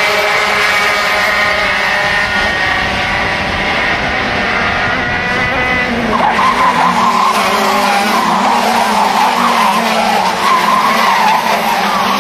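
Several racing kart engines running at high revs, their notes drifting up and down. About six seconds in the sound changes to a louder, wavering engine note.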